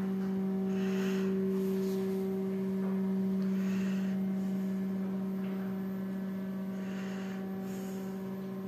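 VVS hydraulic elevator running slowly, heard from inside the car: the hydraulic drive gives a steady low hum with a fainter overtone, easing off slightly in the second half.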